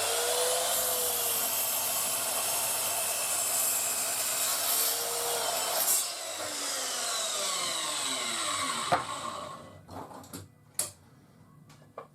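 Titan TTB598MSW sliding compound mitre saw's 1500 W motor running and its blade cutting wood on a 45-degree mitre cut. After about six seconds the saw winds down with a falling whine, and a few knocks follow near the end.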